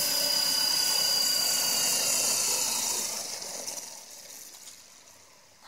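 A flybarless RC helicopter's motor and main rotor spinning down after landing: a high whine that drifts lower in pitch, holds for about three seconds, then fades out as the blades coast to a stop.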